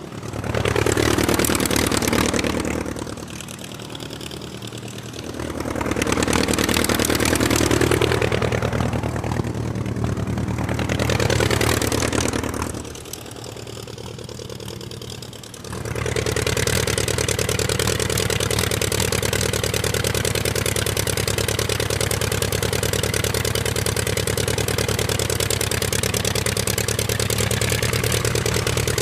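Aircraft engine running, its power rising and falling several times, then held steady at higher power from about the middle on.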